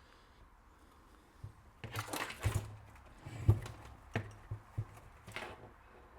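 Handling noises of circuit boards on a workbench: a run of knocks, clicks and short scuffs, the loudest a single thump about three and a half seconds in.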